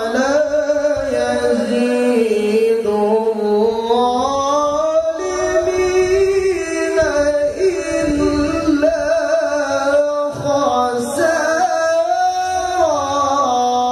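A man reciting the Quran in melodic tilawah style into a microphone over a PA system, holding long ornamented notes that glide up and down in pitch. The phrase closes near the end.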